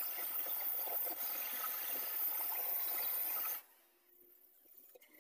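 Gas blowtorch hissing steadily while it burns paint off a motorcycle fuel tank, cutting off abruptly about three and a half seconds in.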